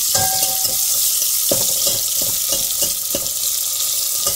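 Chopped tomatoes, green chillies and onion sizzling in hot oil in an aluminium pan, with a steady hiss. A metal spoon stirs them and knocks and scrapes against the pan several times.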